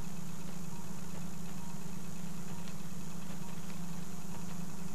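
Arthroscopic shaver motor running steadily with its suction, a constant low hum as the spinning blade smooths torn tissue in the shoulder joint.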